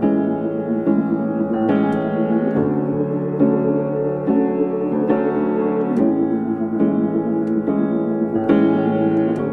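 Instrumental intro of a pop song led by piano, with chords struck about once a second and no vocals yet.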